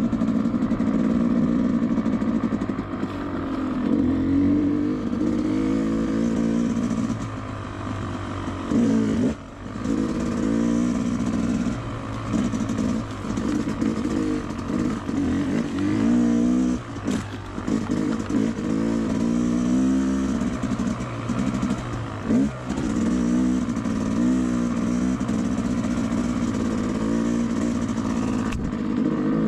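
Two-stroke dirt bike engine revving up and down continually as it is ridden, with brief drops where the throttle is cut about nine and seventeen seconds in.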